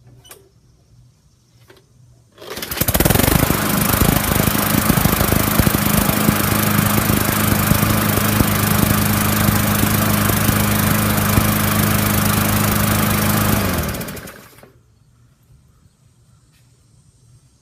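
Murray push mower engine starting with a pull about two seconds in, then running steadily at an even speed for about eleven seconds before it cuts and winds down. The mower starts and runs now that water has been cleaned out of its plastic carburetor bowl.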